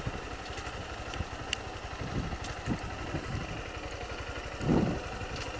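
Honda CG 160 Fan's single-cylinder engine running at low speed, with a few short light knocks and a brief louder thud near the end. The knocking comes from a loose part at the front of the bike that the rider still feels rattling, though the workshop tightened some clips there.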